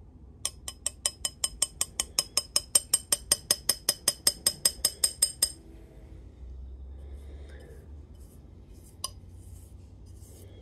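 Glass dish tapped quickly and repeatedly against a glass jar, about six sharp ringing clinks a second for some five seconds, knocking dried gold powder out into the jar. One more single clink comes near the end.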